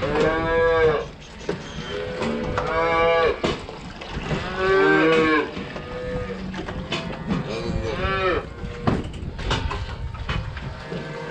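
Holstein calves mooing: several separate calls of about a second each, with a few short knocks in between near the end.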